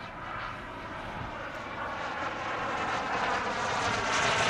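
Twin JetCat P120 model gas turbines of a quarter-scale EE Lightning RC jet, a steady whine and hiss growing steadily louder as the model approaches.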